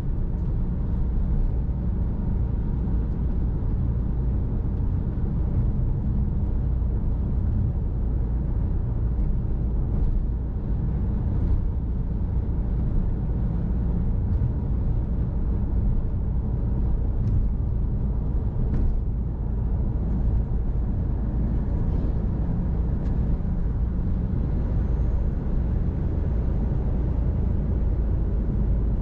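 Car on the move: steady low rumble of engine and tyre road noise, with a few faint ticks.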